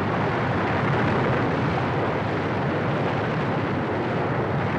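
Muddy floodwater torrent rushing past, a steady, unbroken roar of churning water.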